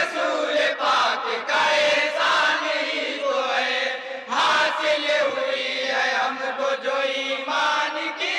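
A group of men chanting a naat in unison, with long held notes and short breaks between phrases.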